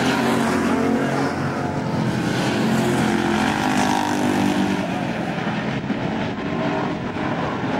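Several pro-street stock cars racing on an oval track, their engines running hard with overlapping engine notes that rise and fall as the cars pass.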